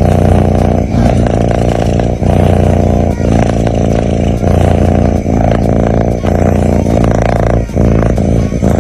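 A sleeping cat snoring close to the microphone: a loud, continuous low rumble broken by a short pause about once a second, at each turn of breath.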